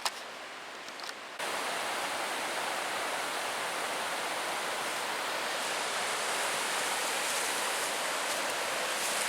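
Steady rush of a stream's fast-flowing water over rocks, starting suddenly about a second and a half in.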